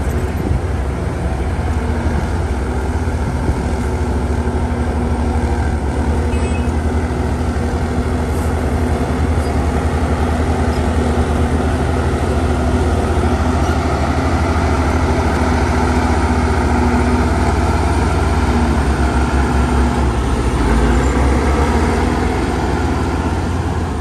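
Diesel engine of a bulldozer running steadily, its note shifting slightly about twenty seconds in.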